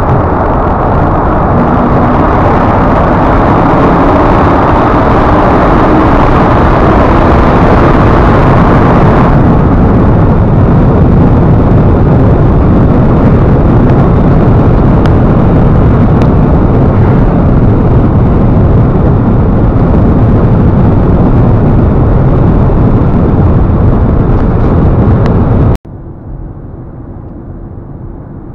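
Hemi V8 car cruising at highway speed, heard from inside the cabin: loud, steady engine, exhaust and road noise. It is brighter for the first nine seconds or so in a tunnel. Near the end the sound cuts abruptly to a quieter, duller stretch.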